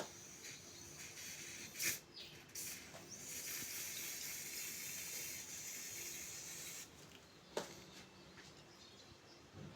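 Aerosol spray paint can spraying: a steady hiss for about four seconds that cuts off sharply, with a short burst or click about two seconds in and another shortly after the spray stops.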